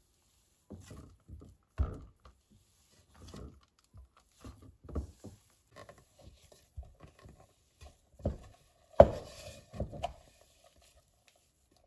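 Hands kneading and squeezing a crumbly hazelnut-and-almond-flour cookie dough in a ceramic bowl: irregular soft thumps and rubbing squishes, with a few sharper knocks, the loudest about nine seconds in.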